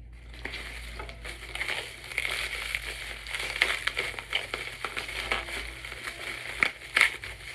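Plastic packaging (bubble wrap and plastic film) crinkling and crackling as it is handled and pulled off a jar, with a run of small sharp snaps and a few louder ones.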